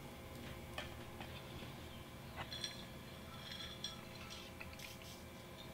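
Faint scattered clicks and clinks of tableware as chopsticks work the noodles on a plate and a glass of iced tea is handled, with a few short ringing clinks in the middle.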